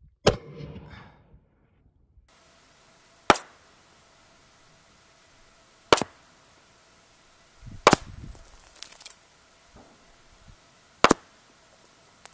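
A 6mm Creedmoor Tikka T3x bolt-action rifle fires once just after the start, the report trailing off in a rolling echo for about a second. Then four short, sharp cracks a few seconds apart are heard from the target end as rounds arrive at the 2000-yard steel target.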